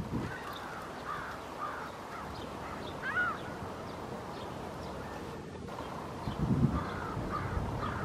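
Canada geese calling, a series of short honks with one louder, higher honk about three seconds in, and low rumbles near the end.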